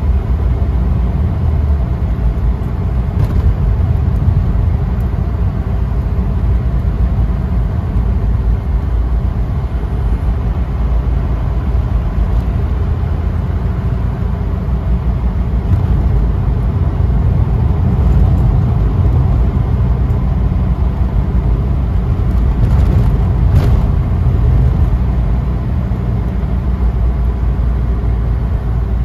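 Inside a moving Mercedes-Benz taxi at cruising speed: a steady low rumble of engine and road noise.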